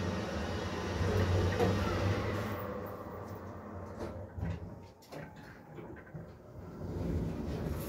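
A 2004 ThyssenKrupp Altus machine-room-less lift's car humming and rushing as it travels, the noise dying away about two and a half seconds in as the car slows and stops. A few sharp clicks follow, then the sliding car doors start to open near the end.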